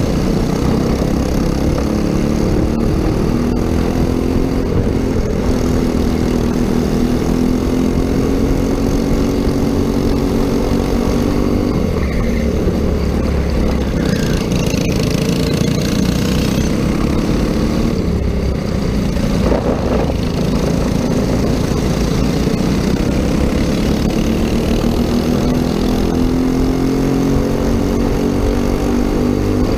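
Racing kart engine at full race speed, its pitch climbing steadily along the straights and dropping off twice as the kart slows for corners.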